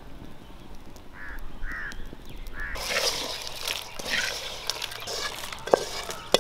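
A few short bird calls, then a slotted metal spatula scraping fried tomatoes, shallots and chillies out of a metal pan into a stone grinding mortar, with a couple of sharp taps of the spatula on the pan near the end.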